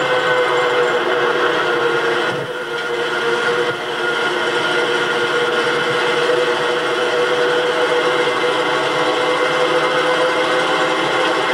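A Jeep CJ-5 Renegade driving, heard from inside the vehicle: a steady engine drone with road noise and held whining tones, dipping briefly between about two and four seconds in before settling back.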